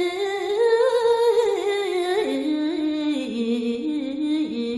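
A single voice singing one long drawn-out line of Balinese geguritan verse in the ornamented tembang style. The pitch rises about half a second in, then steps down to a lower held note from about three seconds in.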